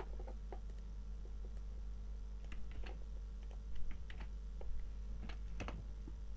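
Typing on a computer keyboard: scattered key clicks, bunched about halfway through and again near the end, over a steady low hum.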